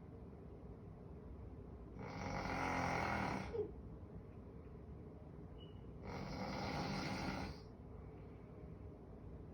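A person snoring while asleep: two long, rough snores about four seconds apart, each lasting about a second and a half, the first ending in a brief click.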